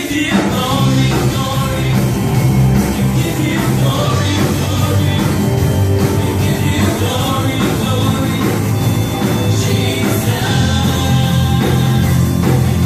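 Live church praise band playing an upbeat worship song on drum kit and electric guitar, with women singers leading the vocals.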